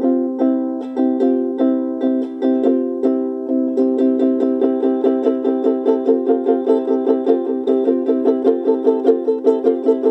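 Ukulele strummed in a steady rhythm, chord after chord. The strumming gets busier about halfway through, reaching about four strums a second.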